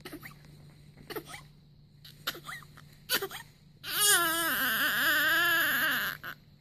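Newborn baby fussing with short whimpers, then breaking into one long, wavering cry about four seconds in that lasts over two seconds.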